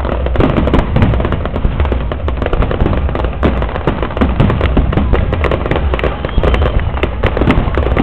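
Fireworks display: a dense, unbroken barrage of shell bursts and crackling, many reports a second.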